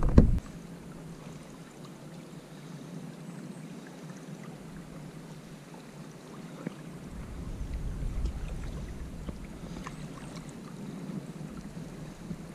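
Kayaks drifting on a creek: faint water sounds and small knocks of paddle and hull. A sharp knock comes right at the start, and a low rumble of wind on the microphone swells for a few seconds midway.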